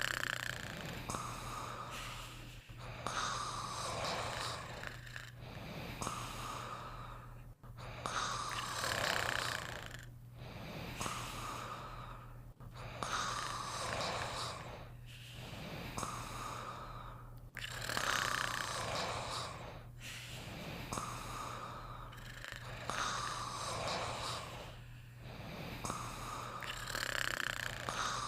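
Snoring in slow, even breaths, rising and falling about once every four to five seconds, over a steady low hum.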